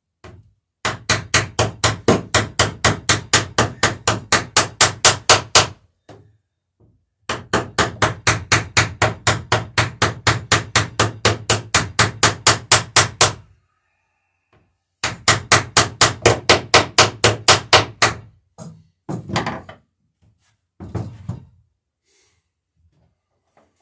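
Ball-peen hammer peening rivets over their washers on the inside of a wooden dory's lapstrake planking: three long runs of rapid, evenly spaced blows, about five a second, with short pauses between, then a few scattered knocks.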